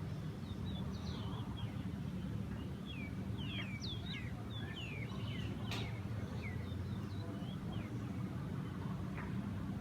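Small birds chirping in short, quickly bending notes, busiest around the middle, over a steady low outdoor rumble. There is one sharp click a little past halfway.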